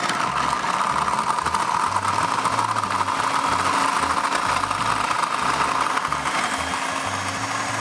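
Food processor running steadily, its blade grinding carob biscuits with honey and tahini; slightly quieter near the end.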